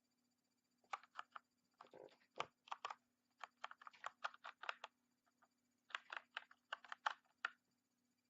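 Typing on an Ajazz AK45 mechanical keyboard with Kailh BOX switches: quick runs of key clicks in three bursts, with short pauses between them.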